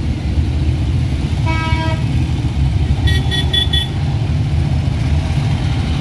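Old cars and motorcycles driving past with a steady, low engine rumble. A vehicle horn toots once, about a second and a half in, then four short, high-pitched horn beeps come quickly one after another around three seconds in.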